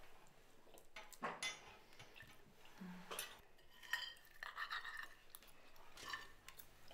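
Faint, scattered clinks and scrapes of forks and knives on dinner plates during a meal.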